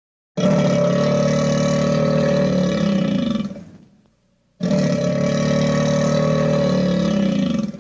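A stock cartoon sound effect played twice: a loud, sustained sound with a steady low pitch lasting about three seconds. The first play fades out, and after a short gap the same sound plays again and cuts off suddenly.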